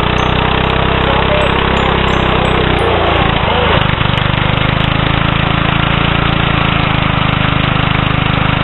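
Small engine on a homemade chain-drive frame running steadily, spinning its small pneumatic wheel against the concrete. The engine note changes briefly about three seconds in.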